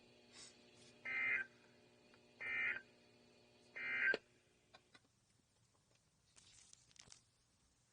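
NOAA Weather Radio SAME end-of-message data bursts: three short warbling digital tone bursts about a second apart, the code that closes the weekly test broadcast.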